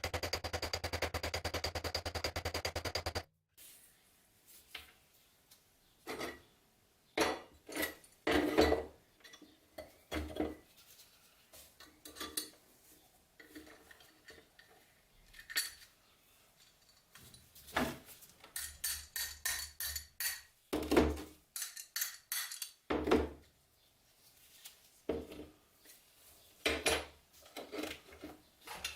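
Small metal padlock parts being handled: scattered clinks, taps and knocks of metal on metal, some single and some in quick runs. A steady buzz cuts off suddenly about three seconds in.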